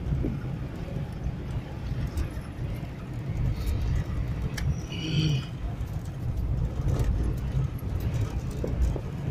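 Vehicle engine and tyres rumbling on a bumpy dirt track, heard from inside the cab, with irregular knocks and rattles from the body. A brief high-pitched squeak sounds about five seconds in.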